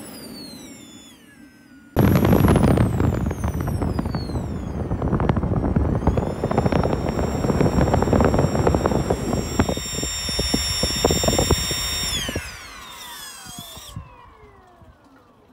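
Electric-compressor hybrid jet thruster firing at full combustion: a loud crackling roar over a high motor-driven compressor whine, which rises in pitch about six seconds in. Near the end the combustion stops and the whine glides down as the compressor spins down; a falling spin-down whine also fades out at the very start before the roar cuts in suddenly.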